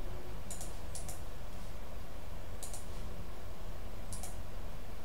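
Computer mouse clicking a few times, each click a quick pair of sharp ticks, over a steady low hum.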